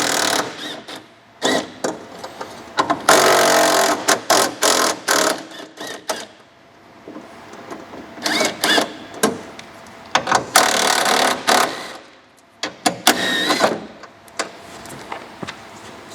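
Cordless power driver run in short bursts of about a second, three main times, undoing the door's bolts, with clicks and knocks of tools and metal parts in between.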